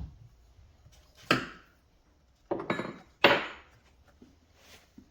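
Tools and chainsaw parts knocking and clattering as the saw is taken apart: a few sharp knocks and rattles about a second apart, fading near the end.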